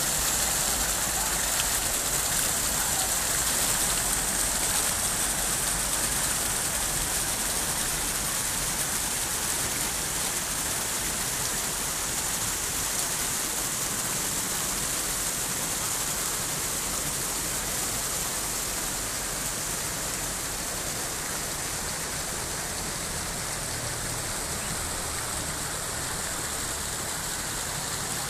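Water pouring down a fountain wall into a channel: a steady splashing hiss that slowly grows a little fainter.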